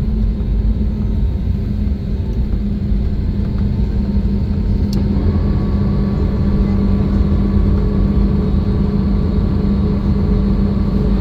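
Airbus A320 cabin noise on the ground just after landing: a steady loud rumble with a constant low hum from the engines and airframe. A faint click comes about five seconds in, followed by a faint high steady tone.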